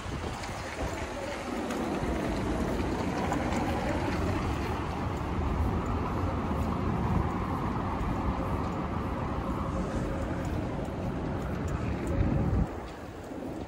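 A motor vehicle running close by on the street: a steady rumble with a faint steady whine, which cuts off abruptly near the end.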